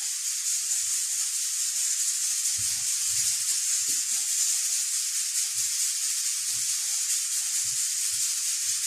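Hands mixing and squeezing a soft, loose flour dough in a bowl: soft, irregular squelches and rubs over a steady hiss.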